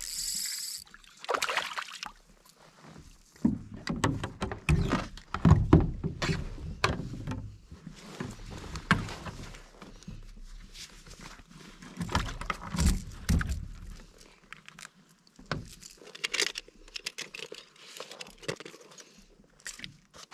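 Irregular knocks, thumps and rattles of a small bass being landed and unhooked in a canoe, with heavier thumps in bursts against the hull and a sharp knock at the end.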